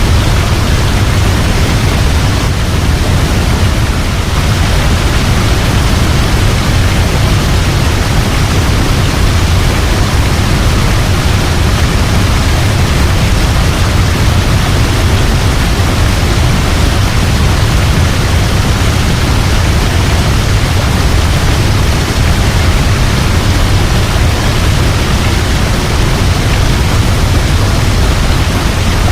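Waterfall crashing steadily: a loud, even rush of water with a heavy low rumble and no changes.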